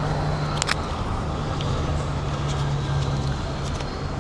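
Motor vehicle engine running with a steady low hum, with a few faint clicks.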